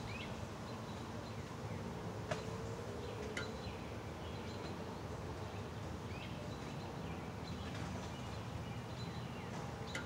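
Steady outdoor background noise with a few faint, short bird chirps that drop in pitch, and two sharp clicks about a second apart a couple of seconds in.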